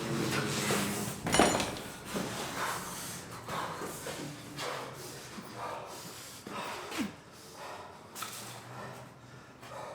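A person's short, sharp breath sounds, coming in sudden strokes at irregular spacing about once a second, the loudest about a second and a half in.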